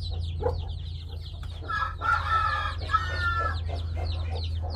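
A brood of chicks peeping continuously in quick, high, falling chirps, while the mother hen calls louder twice, about two and three seconds in. A steady low hum runs underneath.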